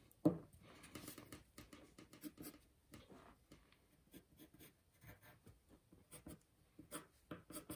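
Pencil lead scratching on paper in short, irregular sketching strokes, faint throughout. One louder short tick comes just after the start.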